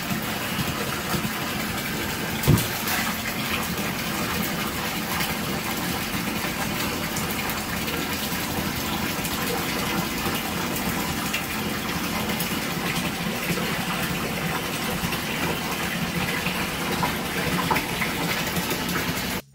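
Water running from a bathtub tap into a filling tub, a steady rushing noise, with a single sharp thump about two and a half seconds in as the bath bomb goes into the water.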